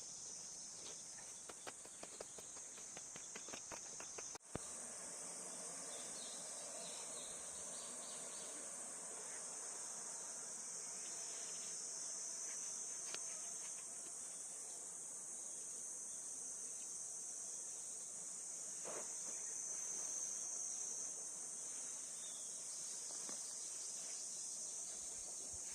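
Steady high-pitched chorus of summer insects. Light scattered clicks and knocks sound over it in the first few seconds, and the sound breaks off abruptly about four and a half seconds in before the chorus carries on.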